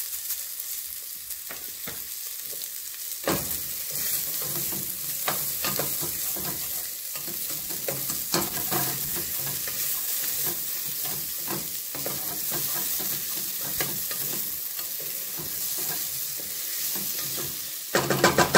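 Diced potato and onion sizzling in oil in a stainless steel pot, a steady high hiss. From about three seconds in, a wooden spoon stirs them, scraping and knocking irregularly against the pot.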